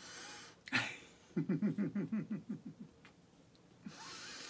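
A woman gives a short run of quick voiced pulses, about eight a second and falling slightly in pitch, like a brief laugh, with a sharp breath just before it. A steady hiss starts near the end.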